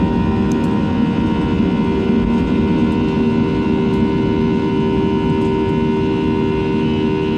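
Steady cabin noise of a Boeing 737-700: the dense rushing sound of the airliner's CFM56-7B turbofans and airflow, with several steady humming tones over it.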